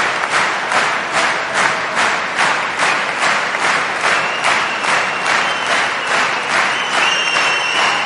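Theatre audience applauding in unison at the end of a show, clapping in rhythm at about three claps a second. A thin high steady tone, like a whistle, joins about halfway through.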